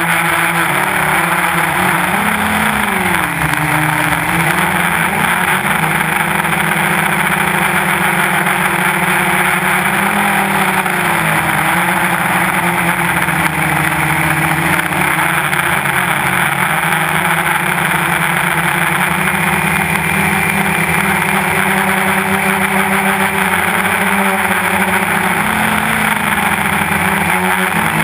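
Quadcopter's electric motors and propellers buzzing, recorded on board the craft, over a steady rushing noise. The motor pitch wavers up and down a few times as the throttle changes.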